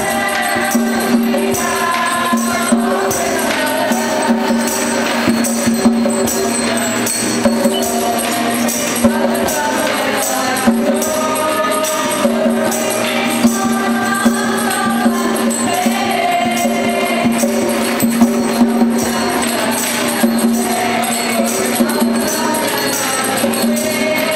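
A group of amateur singers singing a Christmas pop song in unison, accompanied by a strummed acoustic guitar and a tambourine struck on the beat.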